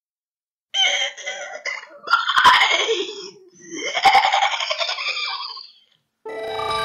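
A voice laughing: a string of giggles that starts about a second in and lasts about five seconds, in two long bouts.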